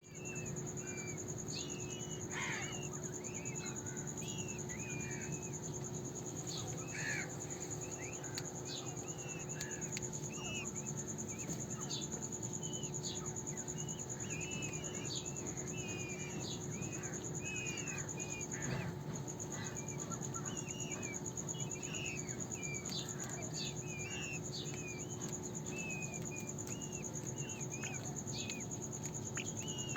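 Peacock chicks (peachicks) peeping over and over, many short chirps a second, over a steady high-pitched trill.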